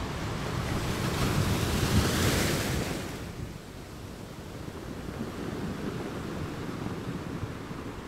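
Underwater water noise picked up by a diver's camera: a rushing hiss swells about a second in and falls away after about three seconds, over a low steady rumble.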